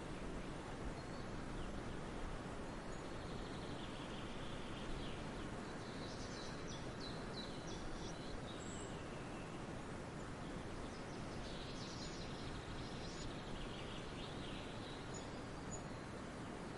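Forest ambience: a steady background hiss with small birds chirping and calling high up, in two spells, one a few seconds in and another past the middle.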